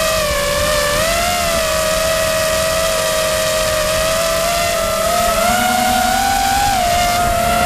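FPV quadcopter's electric motors and propellers whining in flight, heard from a camera mounted on the craft. The pitch wavers up and down with the throttle, climbing a little in the last couple of seconds.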